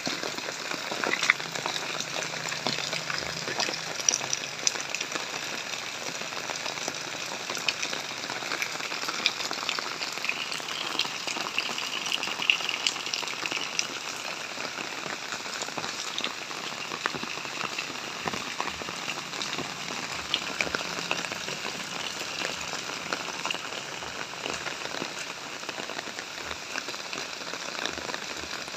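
Steady rain falling, with many sharp ticks of single drops striking throughout.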